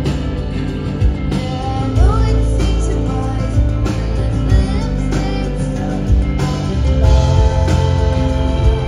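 Live rock band playing loudly, with electric guitars and drums, as heard from the audience at a club gig. A woman's singing voice comes in at times over the band.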